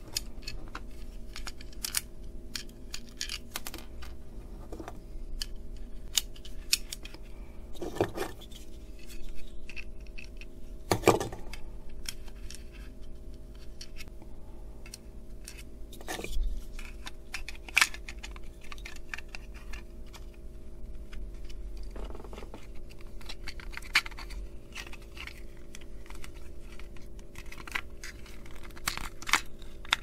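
Plastic housing parts of a plug-in remote-controlled mains socket being handled and fitted back together: irregular small clicks, taps and scrapes, a few louder knocks among them, over a steady faint hum.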